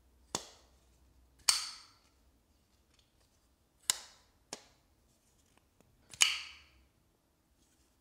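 Petrified Fish PF P08 folding knife being flipped open and snapped shut: five sharp metallic clicks as the blade swings and locks, the loudest two, about one and a half and six seconds in, each with a short ring.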